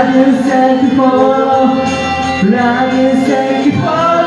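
Karaoke: the backing track of a Japanese pop song playing loudly, with people singing along into microphones in held, melodic notes.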